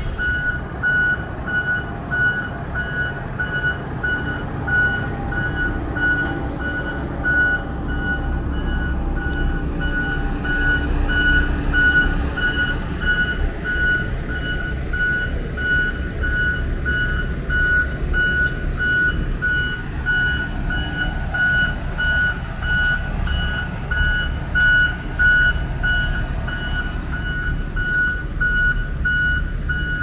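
Reversing alarm on road-paving machinery beeping at an even rate throughout, over the steady low rumble of the road roller's and paver's engines.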